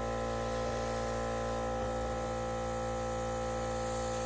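Spectrum Flow airbrush compressor running, a steady electric hum with a faint hiss.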